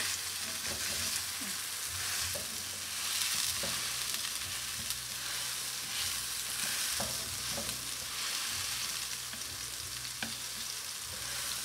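Raw beef burger patties sizzling steadily in hot oil in a frying pan, with a few light clicks and scrapes as a metal spatula presses a patty against the pan.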